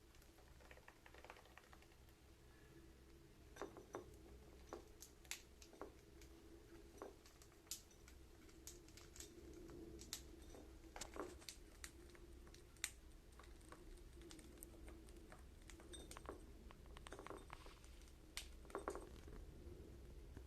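Faint, scattered light clicks and taps from budgies pecking and stepping about, some in quick pairs, over a steady low hum.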